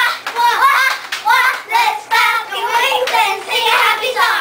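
Several young girls singing loudly together in high voices.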